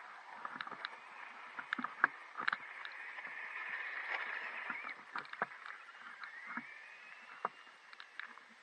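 Traxxas Stampede RC monster truck's electric motor whining as it drives past on loose dirt, rising and falling in pitch twice, loudest about four seconds in. Many sharp ticks and clicks of gravel and dirt thrown by the tyres.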